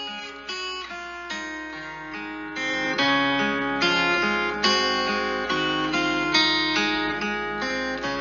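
Acoustic guitar playing a gospel song melody, single picked notes fading one into the next over a bass line, getting louder about three seconds in.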